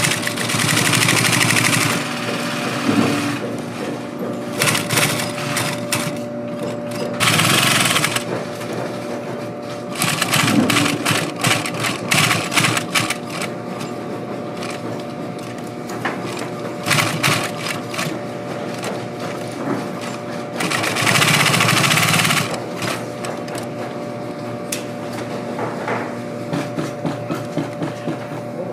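Industrial post-bed sewing machine stitching leather boot uppers: several bursts of fast stitching over a steady motor hum, then slower, separate stitches near the end.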